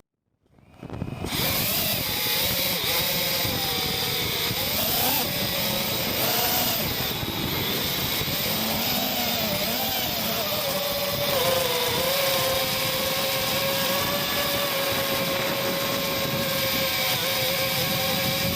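FPV racing quadcopter's motors and propellers buzzing close by, starting about a second in. The pitch wavers up and down for several seconds, then holds steady.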